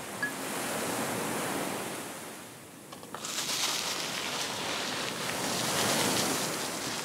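Ocean surf washing in, in two long swells of rushing water. The second swell is hissier and starts about three seconds in.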